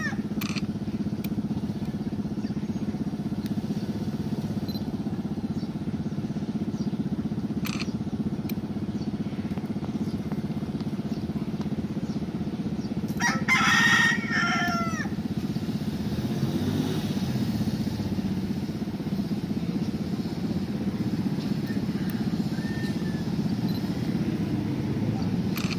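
A rooster crows once, about halfway through, the call ending in a falling note, over a steady low hum.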